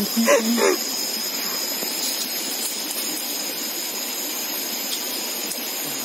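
Rushing water from a stream or falls: a steady, unbroken rush.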